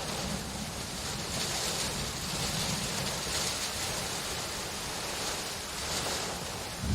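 Steady hiss of rain, with a low rumble underneath that eases off midway through.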